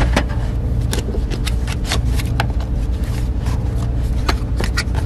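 Cardboard product box being handled and its lid flaps opened: irregular taps, scrapes and rustles over a steady low hum.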